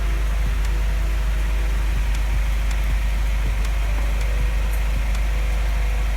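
Freshly rebuilt Cummins ISF 2.8 four-cylinder turbodiesel running steadily, a low even rumble with faint regular ticks.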